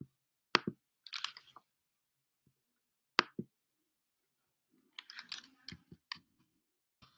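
Computer keyboard keys clattering in short bursts of typing, with two single sharp clicks, one about half a second in and one about three seconds in.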